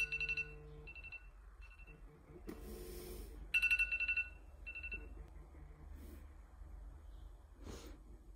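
iPhone alarm tone sounding: short groups of high electronic beeps that repeat and fade, stopping about five seconds in when Snooze is tapped. A short rustling noise comes between the rounds of beeps and again near the end.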